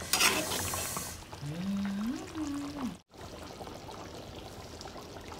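Curry sauce pouring and dripping off a ladle into a wok, with a short hummed voice in the middle. The sound cuts out for an instant about three seconds in.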